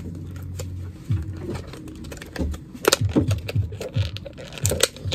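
Clear plastic makeup packaging being handled: scattered light clicks and rustles, with a sharper click about three seconds in.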